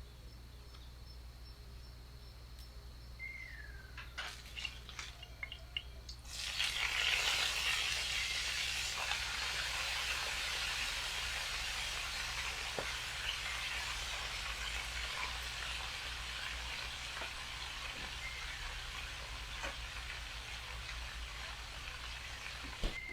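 A few small clicks and knocks, then about six seconds in food goes into a hot pan and sizzles, the sizzle easing off slowly. A bird gives a short falling whistle before the sizzle and again near the end.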